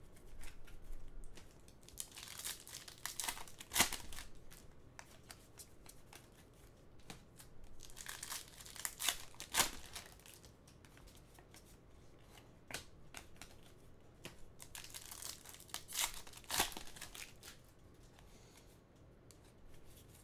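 Foil wrappers of Panini Contenders hockey card packs crinkling and tearing as they are opened by hand, in three bursts a few seconds apart.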